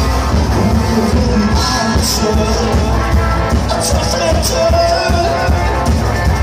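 A live band playing loudly with drums and electric guitar, a full, steady wall of music with a wavering melody line over it in the second half.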